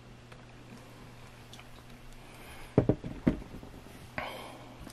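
Two dull knocks about half a second apart, then a brief rustle, over a faint steady hum: handling noise at a workbench.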